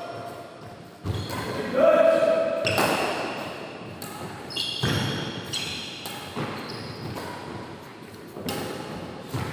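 Badminton rally in an echoing hall: sharp racket strikes on the shuttlecock every second or two, with short voices between the shots.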